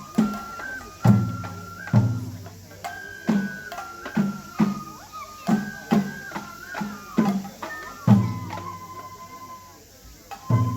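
Japanese festival music for a lion dance: a bamboo flute plays a stepping melody of held notes over irregular taiko drum strikes, with the heaviest beats about one, two and eight seconds in. Near the end the drums drop out briefly while the flute holds a note, then they come back in.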